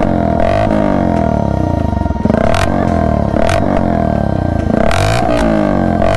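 Bajaj Avenger 160's single-cylinder engine revved with repeated throttle blips, the pitch climbing and falling back each time, through a modified dual exhaust. The sound is very loud.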